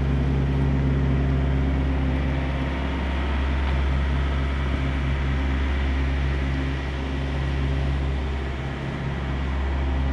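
A steady low mechanical hum, even in pitch with a few faint overtones, barely changing in level.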